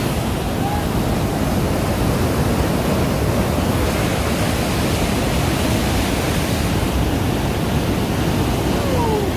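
Rhine Falls, a large waterfall, pouring in a loud, steady, unbroken rush of water.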